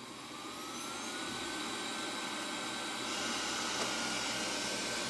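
First-generation Xiaomi Mi robot vacuum's suction fan spinning up at the start of a cleaning run. A whine rises in pitch for about a second and a half, then holds steady over a hiss of rushing air.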